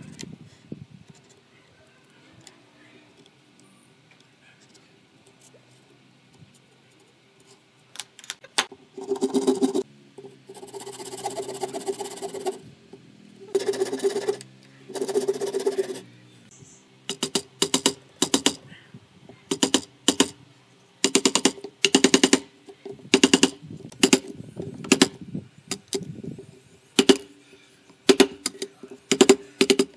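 A chisel is pushed along the wood in several long scraping strokes. Then a hammer strikes a chisel in quick runs of sharp taps, chopping out a shallow recess for a hinge.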